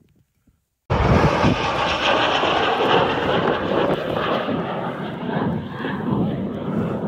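Rail cart rolling along the track: a loud, steady rushing noise of wheels and motion that starts abruptly about a second in.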